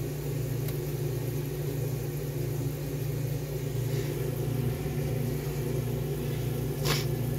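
A steady low hum, with one short noise near the end.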